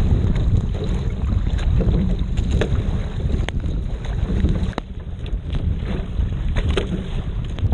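Wind buffeting the microphone with a steady low rumble, while choppy whitecap waves slap and splash against the bow of a Peinert X25 racing shell in short, irregular splashes.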